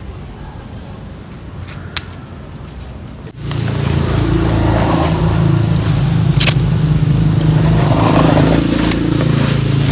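Vehicle engine running close by: a steady low hum that cuts in abruptly about three seconds in, with a couple of sharp clicks over it. Before that, quieter street background.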